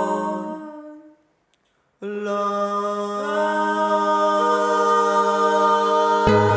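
A cappella vocal group singing in close harmony: a held chord fades out, there is about a second of silence, then a new chord starts sharply on the word "alone" and is held while more voices join one after another. Just before the end a low plucked string instrument comes in under the voices.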